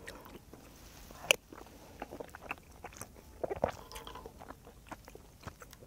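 A metal spoon clicking and scraping against a cast-iron pot-lid pan of saucy tteokbokki, with quiet chewing; a sharper clink about a second in and a few more light clicks a little past halfway.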